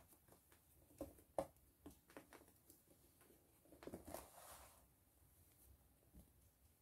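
A dried block of baking soda snapping and crumbling between fingers: several sharp, crisp cracks in the first two and a half seconds, then a softer gritty crunch about four seconds in as fingers rub through the crumbled powder.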